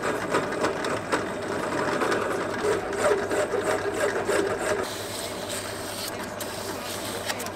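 Drill press running with a flat file held against a short metal rod spinning in its chuck: a steady motor hum under the file's continuous rasp as the rod's end is chamfered and cleaned. It stops just before the end.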